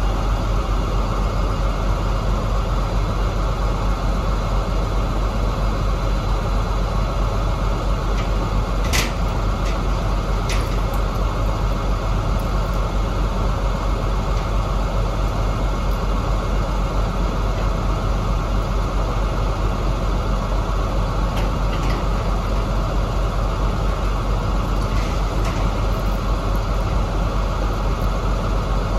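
KamAZ truck's diesel engine running steadily, with a few faint clicks and knocks about nine seconds in, ten seconds in and near the end.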